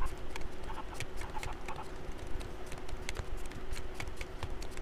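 Tarot cards being shuffled and sorted through by hand on a table: a string of irregular light clicks and flicks as the cards are slid and tapped against each other.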